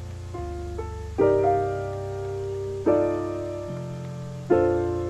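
Background music with no vocals: piano chords struck about every second and a half and left to fade, over a steady bass line.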